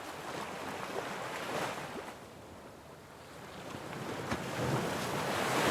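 Ocean waves breaking and washing on a shore: one wave swells about a second and a half in, the surf falls quieter, then another builds toward the end.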